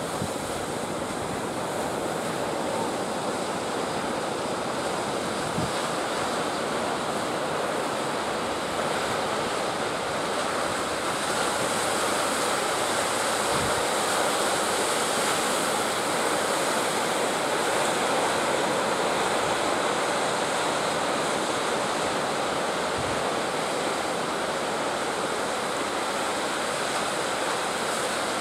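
Surf breaking and washing up the beach: a steady rush of waves, growing a little louder around the middle.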